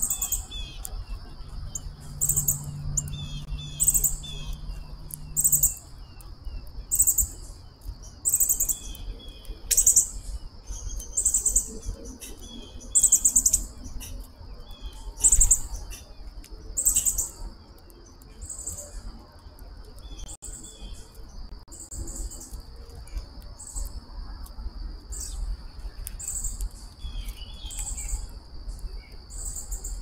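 Birds chirping over a steady high insect drone, with short very high-pitched calls repeating about once a second. A low hum sounds for the first few seconds.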